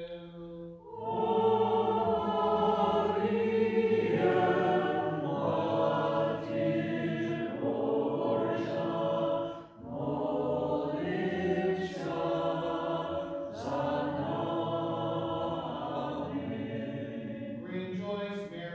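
A group of voices singing Eastern-rite liturgical chant, entering about a second in, with a short break about ten seconds in. Near the end a single voice chants on one steady note.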